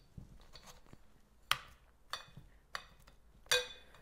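Nuts clinking against the glass of a vase as the filling is pressed into place: four short, sharp clinks with a brief ring, the loudest near the end.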